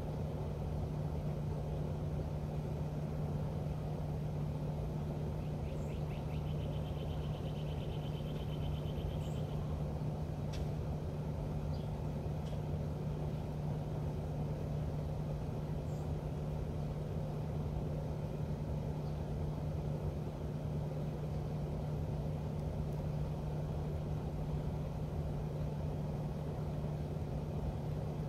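Steady low hum and rumble of a running engine, with a constant low tone and no change in speed. A faint high trill comes briefly about six to nine seconds in.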